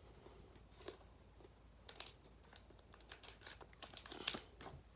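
Foil wrapper of a Pokémon card booster pack crinkling as it is handled and opened: a few scattered crackles, the loudest about four seconds in.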